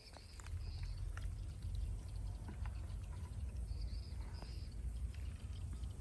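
Steady low rumble at the water's edge, with faint light splashes of small fish being dropped back into shallow water. A bird chirps twice in quick pairs, once near the start and again about four seconds in.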